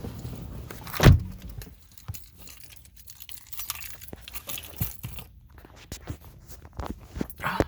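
Keys jangling among small clicks and handling noises, with one loud thump about a second in.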